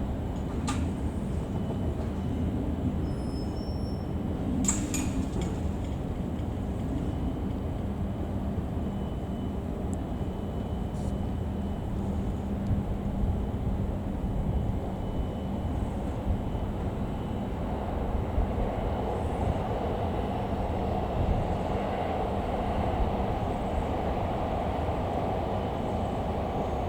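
DE10 diesel locomotive, coupled with an EF65 electric locomotive, running slowly with a steady low rumble. There are a few sharp clicks in the first five seconds. The noise grows fuller in the last third.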